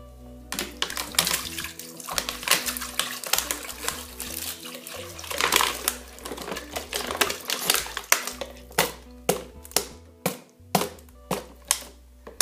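Water poured from an upturned plastic bottle into the stainless steel bowl of a Moulinex Companion food processor: a steady splashing gush for the first several seconds, then separate glugs about twice a second as the bottle empties. Background music with low sustained notes underneath.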